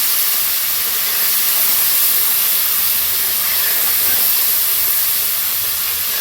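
Salt-and-turmeric water sizzling in hot oil in a kadai, a loud, steady hiss as the water boils off in the oil tempered with nigella seeds.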